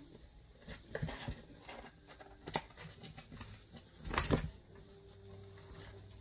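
Quiet scattered clicks, taps and rustles of kittens moving over cardboard and eating dry kibble from a bowl, with one louder brief rustle about four seconds in.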